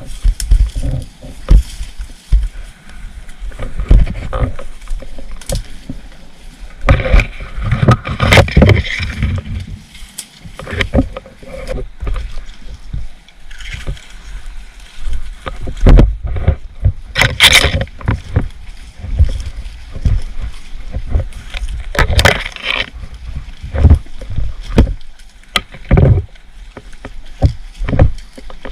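Irregular low thumps and rustling from a body-worn camera's microphone as the player moves on foot, with a few sharper knocks. Faint voices come through at times.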